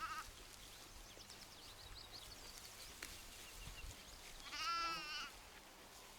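A Shetland sheep bleats once near the end, a single wavering call, with the tail of another bleat just at the start.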